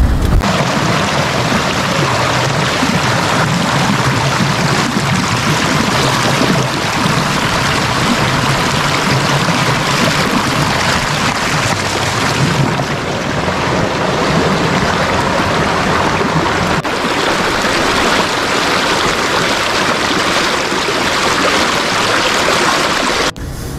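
Mountain stream rushing: a loud, steady, even hiss of running water that cuts in just after the start and cuts off suddenly shortly before the end.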